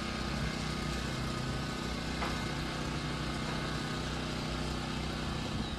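An engine running steadily at idle: a constant hum of fixed tones over an even hiss.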